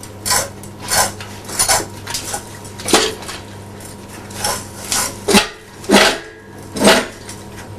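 A run of sharp metallic clanks and clinks, about ten in all at irregular intervals, as metal parts or tools are handled over a steady low hum.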